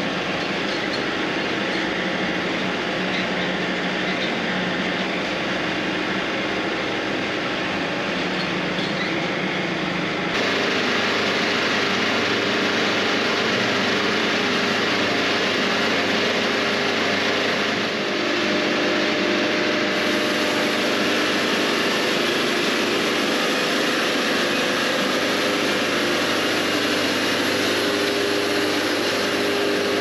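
Wood-Mizer LT70 band sawmill's engine running steadily as the log is set up on the mill, with a steady hum and a few steady tones. The sound changes abruptly about ten seconds in, the deep rumble dropping away and the upper range getting louder.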